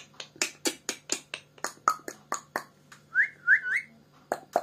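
A green pet parakeet chattering: a quick run of sharp clicks and chirps, about four a second, then three short rising whistles about three seconds in, then a few more sharp calls.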